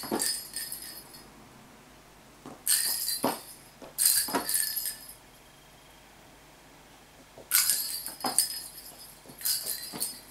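Small pink plastic cat-toy balls knocking and rattling with a high ringing jingle as they bounce and roll across a hard laminate floor when a kitten bats them, in five bursts about two seconds apart.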